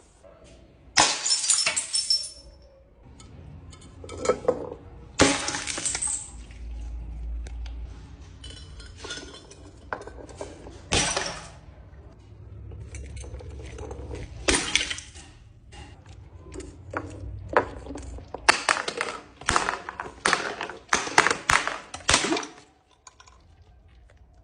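Glass being crushed and broken: a series of sharp cracks and crunches, coming thick and fast in the last few seconds before a short lull.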